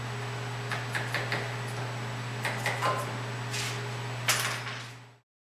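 Wooden clicks and clacks as cut plywood plugs are worked out of a hole saw on a drill press and set down on the table. The knocks are loudest about four seconds in and sound over a steady low hum, and everything fades out near the end.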